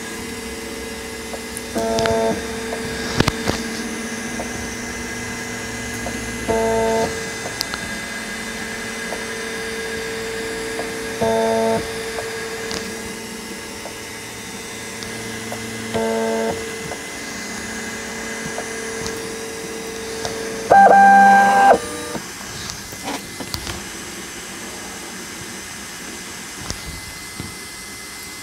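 Prusa i3 MK2S stepper motors whining steadily as the print head lays down the first-layer calibration zigzag. The pitch shifts briefly at each turn of the pattern, about every four to five seconds. About 21 seconds in there is a louder, higher one-second move, after which the motor whine stops.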